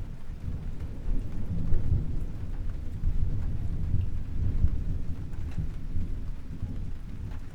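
Thunder rumbling low and long over steady rain, swelling about two seconds in and again around the middle.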